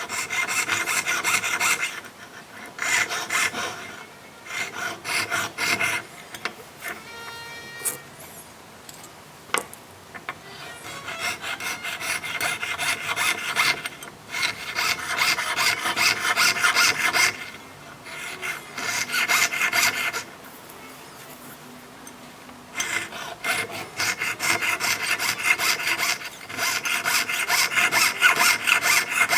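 Jeweller's fret saw cutting an openwork pattern through 1.5 mm 18K gold plate by hand: runs of quick, even rasping strokes a few seconds long, broken by short pauses.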